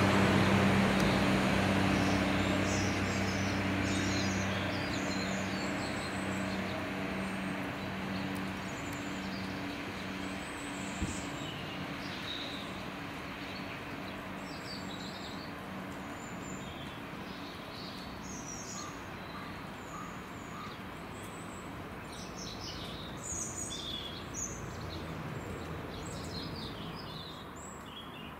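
A Class 142 Pacer diesel railbus's engine hums steadily as the unit pulls away, fading out over the first ten seconds or so. Small birds chirp throughout.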